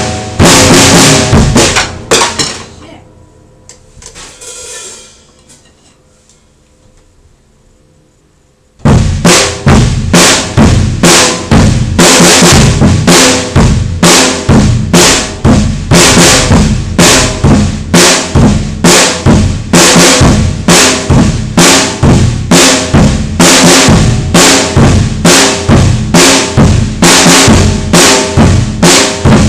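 Drum kit played loudly: the playing stops about two and a half seconds in and the cymbals ring out and fade. After a gap of several seconds it starts again abruptly with a steady beat of about two heavy hits a second, snare and bass drum under cymbals.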